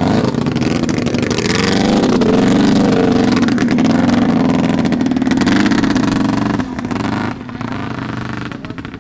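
Vintage snowmobile engine running loudly, its pitch rising about two seconds in and then holding steady before it fades about seven seconds in.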